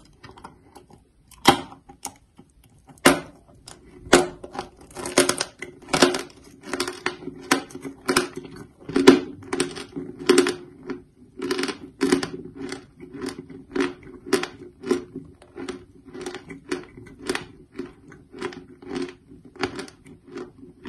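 Close-up chewing of a mouthful of dry, crunchy chalk. It starts as a few separate crunches and settles into steady chewing at about two crunches a second.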